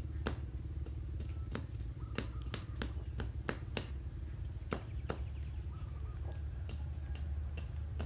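A blade shaving and splitting bamboo sticks: sharp, irregular clicks, about two or three a second, some louder than others, over a steady low hum.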